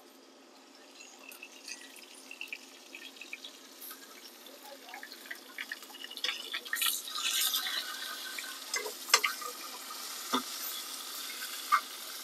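Carrots in beef tallow sizzling in a pan over a charcoal fire while a metal spatula stirs them. The sizzle builds to a steady hiss about halfway through, with scattered clicks and scrapes of the spatula against the pan.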